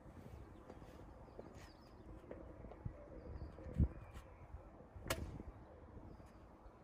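A golf pitch shot: a single sharp click of the club striking the ball about five seconds in, with a dull low thump a little over a second before it. Faint bird chirps in the background.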